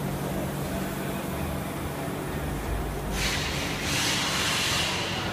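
Steady low mechanical hum of a truck shop, with a loud hiss that starts about three seconds in and lasts nearly two seconds.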